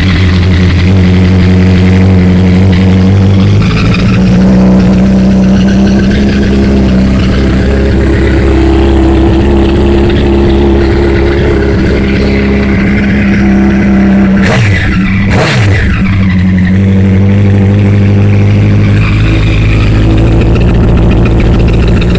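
2008 Honda CBR1000RR's inline-four engine running at idle through a loud exhaust after a start, its note shifting a few seconds in, with a short swoop down and back up in pitch about two-thirds of the way through.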